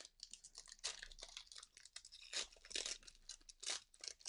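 Foil wrapper of a Pokémon booster pack being torn open and crinkled by hand: a run of irregular crackling rips, loudest in the second half.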